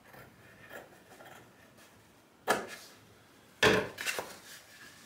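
Two sharp knocks about a second apart, the second louder, then a few lighter clicks. Hard objects are being set down and handled on a work surface, after faint rustling.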